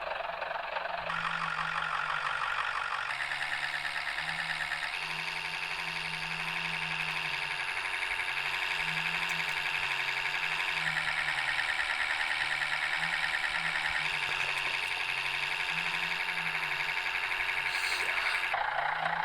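Inside a MAZ-105 city bus under way: the diesel engine runs with a low wavering drone, over a whine that steps up and down in pitch several times as the bus changes speed.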